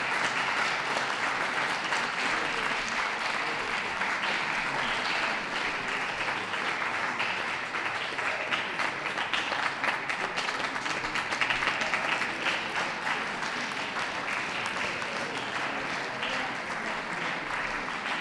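Audience applauding steadily: many hands clapping in a continuous patter with no break.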